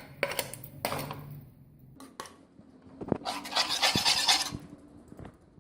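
A spoon knocking and scraping against a pan and a container as ginger garlic paste is spooned into the pan: several sharp clinks, then a longer scrape about three seconds in.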